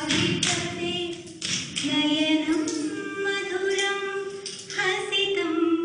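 A woman singing a Carnatic melody for Bharatanatyam dance in long held notes that slide from one note to the next, with a sharp strike about once a second.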